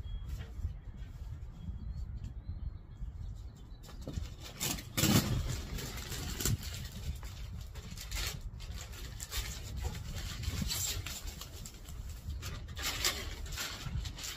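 Clear plastic packaging bags crinkling and rustling in bursts as they are handled and pulled open, loudest about five seconds in, over a steady low rumble.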